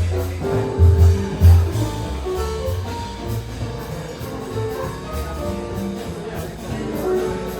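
Music with a bass line and sustained instrumental notes.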